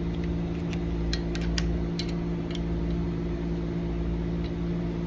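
A steady low machine hum runs throughout. Over it, a quick cluster of light metallic clicks and taps in the first two and a half seconds comes from the push-bar exit device's parts being handled and fitted into place.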